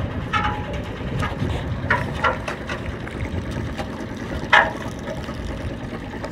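Yanmar inboard marine diesel engine running steadily. A few short knocks and scrapes sound over it, the loudest about three-quarters of the way in.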